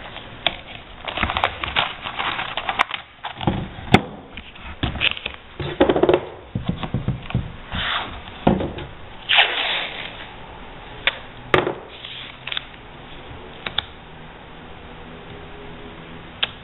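Blue painter's tape being laid in strips and pressed down by hand on a canvas, with the canvas handled: irregular rustling and crackling with sharp taps and clicks. It goes quiet for the last few seconds.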